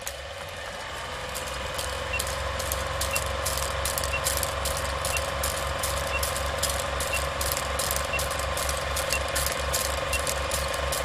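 Old film projector sound effect under a countdown leader: a steady whirring clatter with a fast low flutter, film crackle and a steady hum. From about two seconds in, a short high beep sounds once a second, ticking off the countdown.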